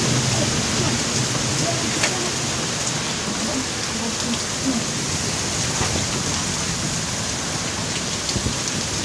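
Heavy rain pouring steadily in a thunderstorm, driven by strong wind.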